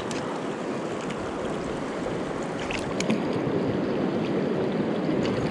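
Mountain river running steadily, a continuous wash of rushing water, with a couple of faint clicks about three seconds in.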